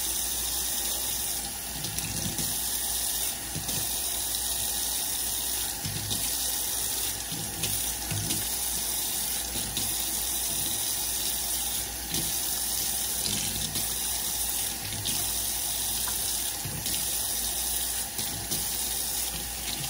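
Kitchen faucet running a steady stream of water into a stainless steel sink.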